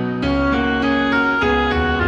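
Instrumental background music: a melody of pitched notes, one after another.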